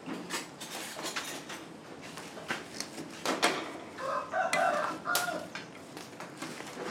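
A rooster crowing once, about four seconds in, with scattered light clicks and knocks around it.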